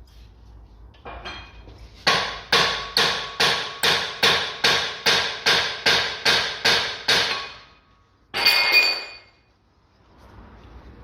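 Hammer striking steel suspension parts about thirteen times in a steady rhythm, a little over two blows a second, each with a ringing metallic tone, while working the front steering knuckle and shock absorber apart. About a second after the blows stop comes one short, harsher metallic clatter.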